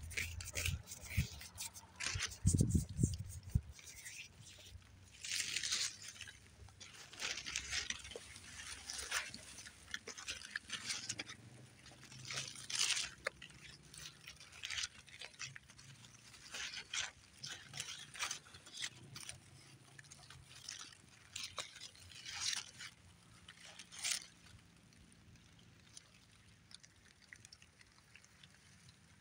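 Leaves and stems of dense berry bushes rustling and brushing in short, irregular bursts, with a few low thumps in the first few seconds. The rustling dies away near the end.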